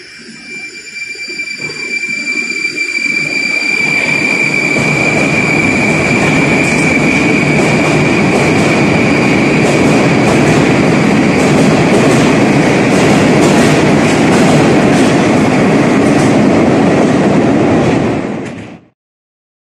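Metro train pulling out of the station. Its wheels and running gear get louder over the first few seconds, then run on steadily with faint clicking. A steady high whine fades away in the first half. The sound cuts off abruptly near the end.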